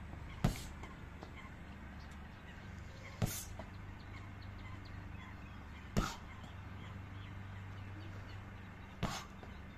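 Four thwacks of a foot striking a padded kick shield, about three seconds apart: Muay Thai push kicks (teeps) landing on the pad, over a steady low background hum.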